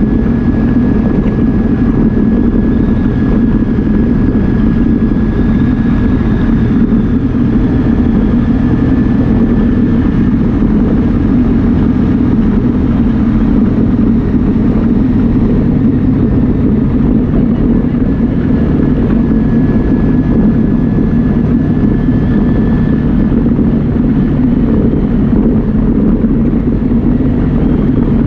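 Yamaha Viking side-by-side's single-cylinder engine running steadily under way. The drive noise is loud and even, with a faint high whine over it in places.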